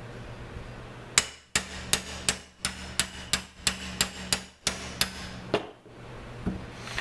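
Claw hammer striking a steel punch in a quick series of about thirteen sharp metal taps, roughly three a second, driving out the trigger guard pin on an M4 carbine lower receiver. The pin is stubborn.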